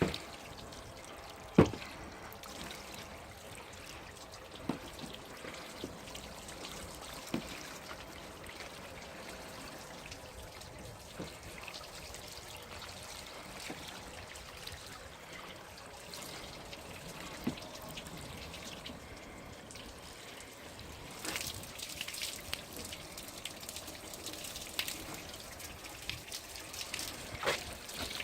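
Water trickling and dripping off a car's coated, water-repellent surface, with scattered sharp drips. The trickling and dripping grow busier about three quarters of the way through.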